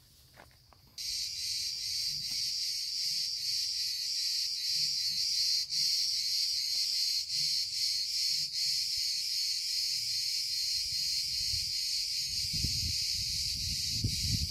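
A chorus of cicadas buzzing in a high, steady, unbroken drone that starts abruptly about a second in. Irregular low thuds join near the end.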